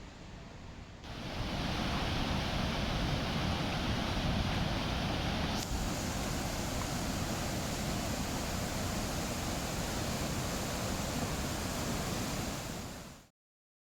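Heavy rain falling in a steady hiss. It becomes suddenly louder about a second in and cuts off abruptly near the end.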